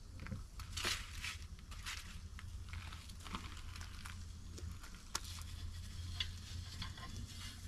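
Food starting to fry in a pan on a gas camping stove, crackling and spitting irregularly, mixed with crinkling of a plastic food packet, over a steady low hum.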